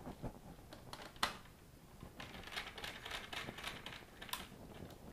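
Small screwdriver clicking and scraping at a circuit board's screw-terminal block while a wire is fastened in, a run of light ticks with one sharper click about a second in.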